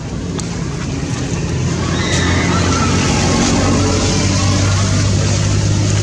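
A motor vehicle engine running steadily, its low hum getting louder about two seconds in and staying up.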